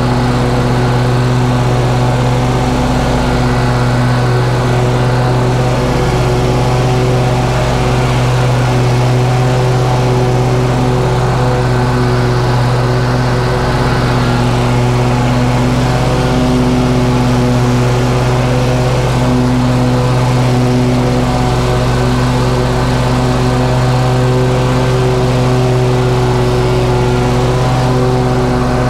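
Toro Grandstand 52 stand-on zero-turn mower mowing grass, its engine running at a steady pitch with the blades engaged.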